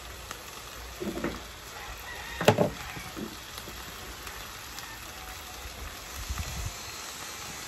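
Chicken pieces, onion and bell pepper sizzling steadily in a nonstick frying pan, with a few short knocks, the loudest a sharp one about two and a half seconds in.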